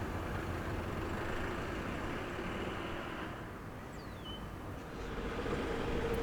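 Steady background noise, with a low engine hum coming in about five seconds in and holding steady.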